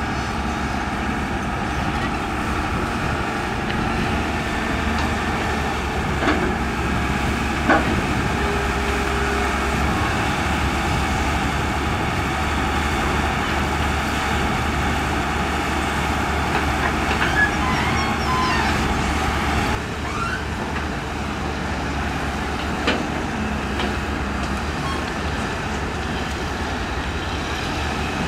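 Diesel engines of hydraulic excavators running steadily while working in deep mud, with a few short metallic clanks and knocks.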